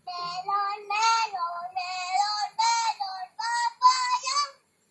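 A young child singing in a very high voice: short held notes in phrases with brief breaks, the pitch stepping up a little in the second half.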